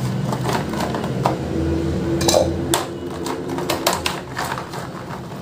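Kitchen utensils clicking and tapping in quick irregular strokes while garlic is handled for a spice mix. A low steady hum runs under the clicks for a couple of seconds in the middle.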